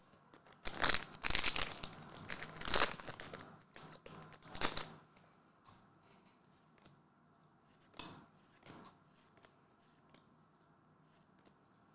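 Foil trading-card booster packs crinkling and being torn open, in a few loud bursts over the first five seconds. After that come only a few soft ticks as the cards are handled.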